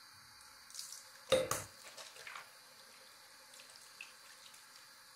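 Water running steadily from a faucet onto a soap bar in a ceramic sink, with a short knock about a second and a half in and a few lighter taps.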